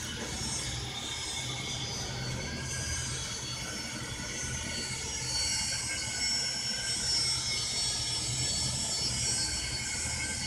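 RS-100L vacuum emulsifying mixer's main tank running at slow speed, its agitator and wall scraper turning: a steady low motor hum under high, slightly wavering whining tones, a little louder from about halfway through.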